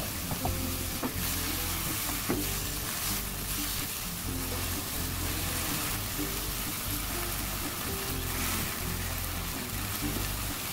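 Sliced shiitake mushrooms sizzling in oil in a wok as they are stir-fried with a soy-based seasoning sauce. A few light knocks of the stirring utensils come in the first couple of seconds.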